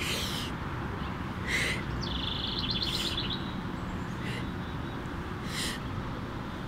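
A woman's sharp breaths through the mouth, about one every second and a half, keeping time with a yoga breathing exercise. A songbird's trill comes in about two seconds in, over a steady low outdoor rumble.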